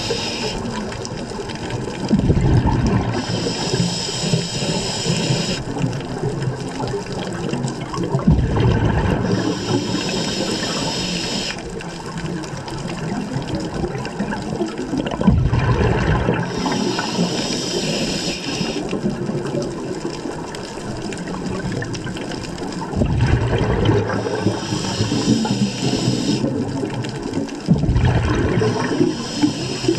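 Scuba diver breathing through a regulator underwater: a burst of exhaled bubbles, then a hissing inhale, repeating about every six seconds, five breaths in all.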